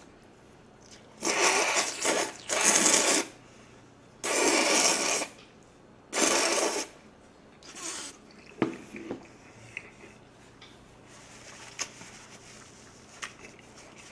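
Jjajangmyeon noodles slurped into the mouth in four loud pulls of about a second each, followed by softer chewing with small wet mouth clicks.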